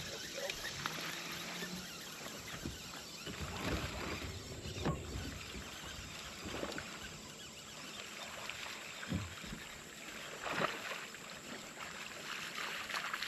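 Water lapping against a fishing boat's hull in a light wind, with a few soft ticks and small splashes scattered through it.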